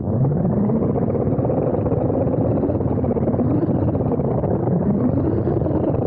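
Small RC car's electric motor and drivetrain running as it drives over the floor, a steady rumble and whine whose pitch rises and falls with the throttle, picked up by a camera mounted on the car.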